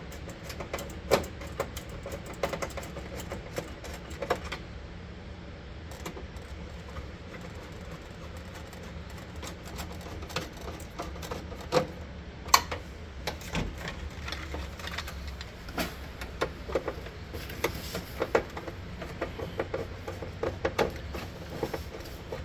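Scattered small metal clicks and rattles of screws and a coin mechanism being fastened into a vending machine by hand, over a steady low hum. The clicks come thicker near the end.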